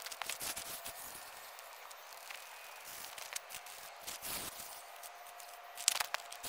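Absima CR-18 Pro Hunter 1/18 RC crawler climbing a rock face: a faint, steady whine from its electric motor, with tyres scrabbling and loose grit crackling on the rock. A sharp click comes a little before the end.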